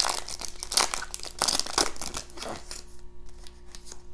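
Foil trading-card pack wrapper crinkling as it is torn open, loudest in the first couple of seconds, then dropping to a few faint crackles near the end.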